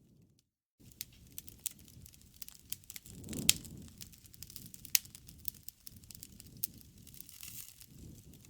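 Wood bonfire burning, with irregular sharp pops and crackles over a low rush of flame that swells about three and a half seconds in. The sound cuts out completely for under a second near the start.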